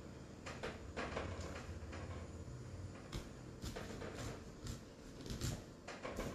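Small knife cutting into the flesh of a halved pineapple, making soft, irregular cuts and scrapes with light knocks.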